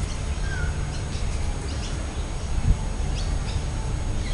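Birds chirping and calling over a steady low rumble, with one short gliding call about half a second in and a single dull thump a little past halfway.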